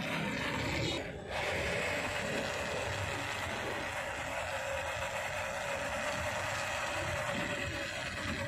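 Electric motor and geared drivetrain of an MN99S 1:12 scale RC crawler whining steadily as it drives, with a brief dip about a second in.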